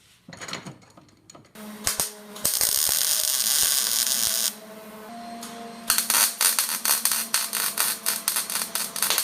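Welding on a small steel gate-latch piece: a steady hissing arc for about two seconds that cuts off abruptly, then a few seconds later a crackling, popping arc.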